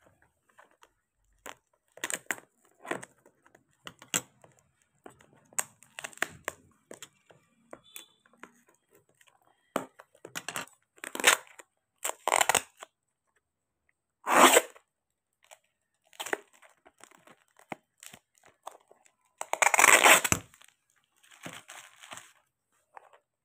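Brown packing tape being cut with scissors and ripped off a clear plastic box, with the plastic crinkling: a string of short rips and crackles, the two longest and loudest about halfway through and near the end.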